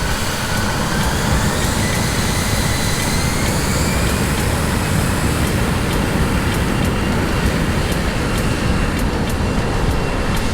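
Jet airliner engines running at high power: a loud, steady roar with whines slowly rising in pitch over it.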